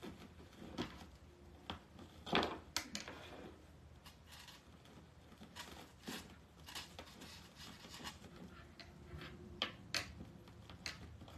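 Deco mesh ribbon being scrunched and handled into cruffles: irregular crinkling rustles with a few light clicks, one louder rustle about two and a half seconds in.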